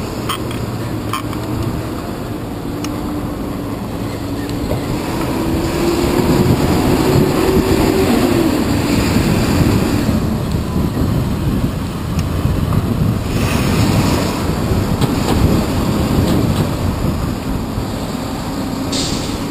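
Wind buffeting the microphone of a bicycle's handlebar camera, over the rumble of city traffic riding alongside. A nearby vehicle's engine climbs in pitch for a few seconds and drops off about midway.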